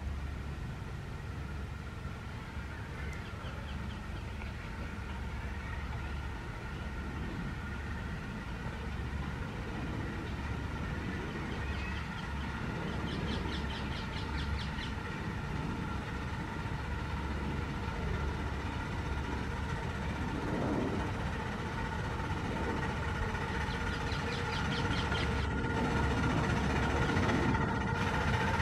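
Miniature railway locomotive hauling a train of passenger cars, running steadily and getting gradually louder as it approaches, with a steady hum and a low pulsing rumble. Short runs of rapid clicking come about halfway through and again near the end.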